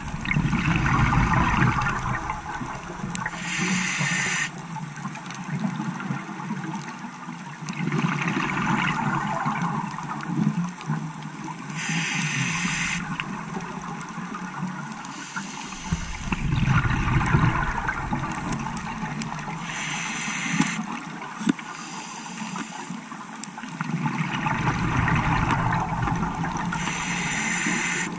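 Scuba diver breathing through a regulator. Each breath is a short hiss on the inhale, then a few seconds of bubbling exhaust, repeating about every eight seconds.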